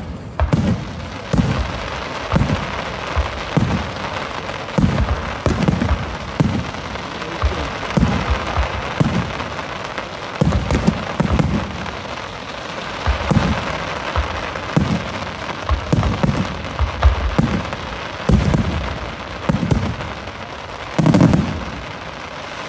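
Aerial firework shells bursting in a display, a heavy bang about once a second, some in quick pairs, over a continuous crackling hiss.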